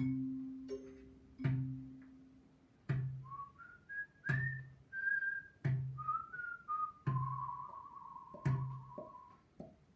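Improvised ensemble music: a low instrument note sounding about every second and a half, each dying away, with a whistle playing short sliding notes from about three seconds in and a long warbling trill near the end.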